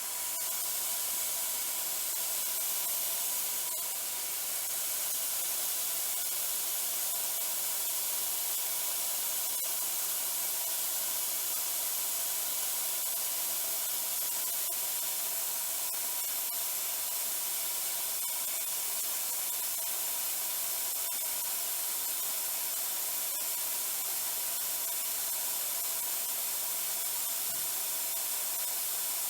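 Spin rinse dryer running its second dry cycle at 500 RPM: a steady, even hiss, strongest in the highs, with a faint steady tone underneath.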